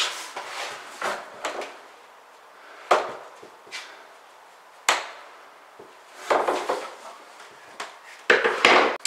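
Knocks and scrapes from an acrylic shower pan being shifted and pressed down into place by hand: a handful of separate knocks, a sharp one about halfway, and longer scraping stretches near the end.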